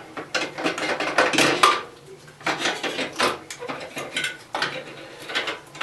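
Metal parts clinking and scraping as an oil burner's nozzle and electrode assembly is handled and put back into the burner, in a quick run of irregular clicks and clanks.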